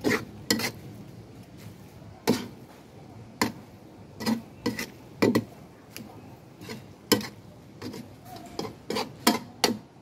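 Spatula clanking and scraping against a metal wok while stir-frying: irregular sharp knocks, one or two a second, coming closer together near the end.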